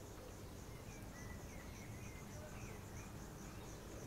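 Insects chirping steadily in a high, even pulse about three times a second, with a few faint bird calls.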